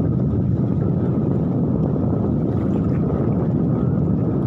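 Steady wind buffeting the microphone at sea, a continuous low rumbling rush with no breaks.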